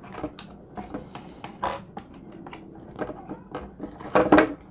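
Handling noise inside an opened drone remote controller: irregular small clicks, taps and scrapes of fingers and wires against its plastic shell and stick assemblies, with a few louder knocks a little past four seconds in.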